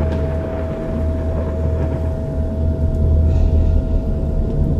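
Deep, steady drone of Tibetan Bon ritual music, with one thin high tone held steadily above it.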